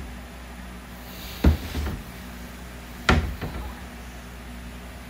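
Kitchen cabinet door knocking open and shut: two sharp knocks, about a second and a half in and again about three seconds in, each followed by a few smaller knocks.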